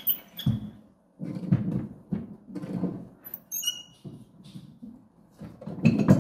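Sash weight being fed back into the weight pocket of a sash-and-case window: it knocks and rumbles against the wooden case, with sharp knocks near the start and near the end and a short high squeak about three and a half seconds in.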